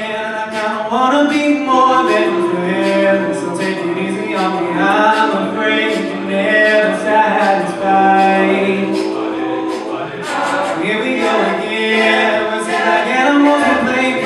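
Male a cappella group singing in harmony, a lead voice over the backing voices, with a steady beat of about two strokes a second.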